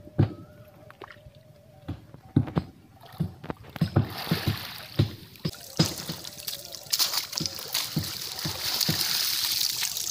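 Muddy creek water sloshing and splashing as a man wades through it, with scattered low thumps. About four seconds in, a hiss of splashing water starts and grows louder toward the end, as he carries the wet cast net out onto the mud and swings it to cast.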